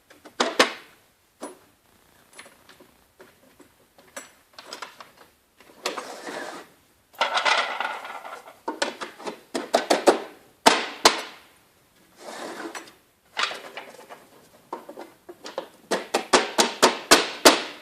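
Hard plastic barrels knocking and clicking as they are pushed into the slots of plastic cable-reel flanges, with scraping and rattling as the reel is turned. There is a quick run of clicks near the end.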